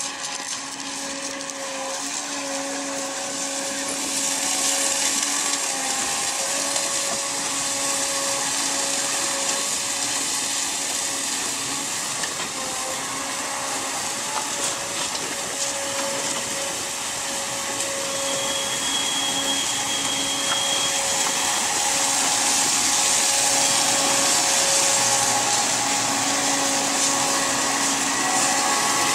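Tracked launch and recovery tractor of a Shannon-class lifeboat running, a steady engine hum with a hiss, growing louder as it works close by.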